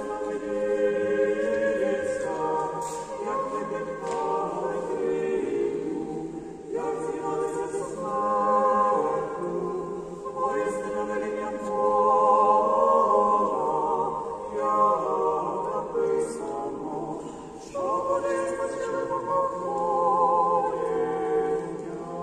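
Church choir singing an unaccompanied panakhyda (memorial service) chant, several voices in harmony. It moves in long phrases, with new phrases starting about six, ten and eighteen seconds in.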